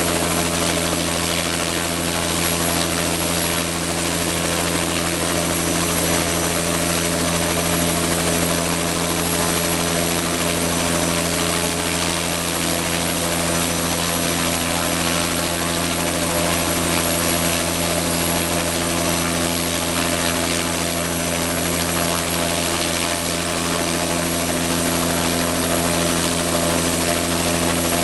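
Bell 206 JetRanger helicopter running steadily on the helipad, its single turbine engine and rotor keeping an even, unchanging sound.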